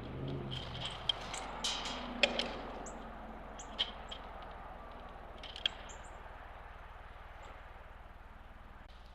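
Small birds giving short, high chips and chirps, with several sharp clicks or taps in the first few seconds, over a low rumble that fades away early.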